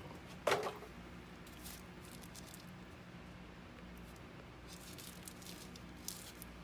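Faint rustling and crinkling of a paper instruction-manual packet being turned in the hands, with one short, louder handling sound about half a second in and a low steady hum underneath.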